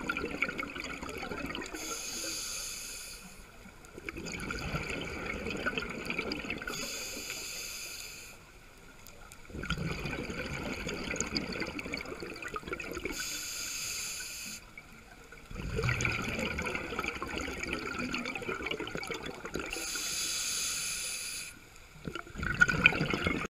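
Scuba diver breathing through a regulator underwater: about four breaths, each a short hiss on the inhale followed by a long stretch of bubbling on the exhale.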